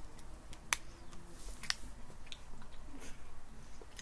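Quiet chewing and biting on a chewy candy cable, with a few sharp clicks spaced about a second apart.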